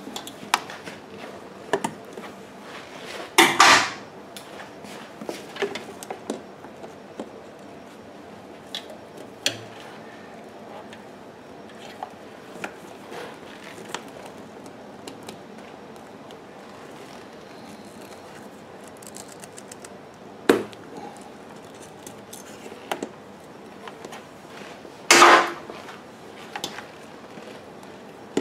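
Scattered clicks and metallic clinks of needle-nose pliers working a spring hose clamp and a small rubber fuel hose inside a generator's housing, with two louder clattering rattles, one about three seconds in and one near the end, and a sharp knock between them.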